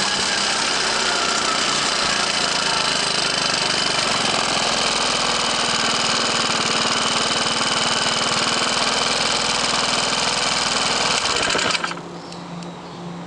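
Suzuki Choinori 50cc scooter's small single-cylinder four-stroke engine running under way with a steady, buzzy go-kart-like note. Near the end it suddenly drops to a much quieter, steady low running note, as at idle.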